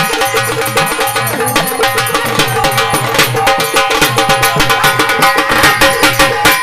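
Instrumental break in a Marathi devotional folk song: a fast, steady drum beat under sustained melody notes.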